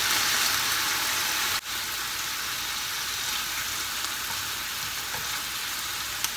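Konnyaku sizzling in a hot non-stick frying pan with the burner just turned off, a steady hiss from the pan's leftover heat. The hiss drops out for a moment about one and a half seconds in and then goes on a little quieter. A few light taps of wooden chopsticks come in the last couple of seconds.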